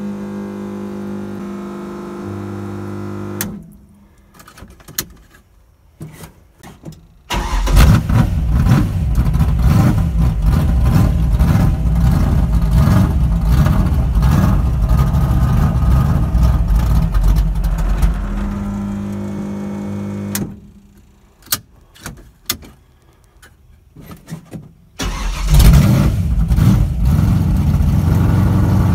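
Drag race car's engine starting and running at a fast idle of about 2,000 rpm, loud. It cuts off about twenty seconds in and is started again about four seconds later. A steady hum and a few clicks come before the first start.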